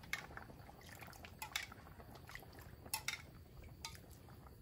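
Faint, scattered clinks and taps of a utensil against a pot and dishes, about seven in all, with a little liquid sound as tamarind water is added to a pan of sour curry.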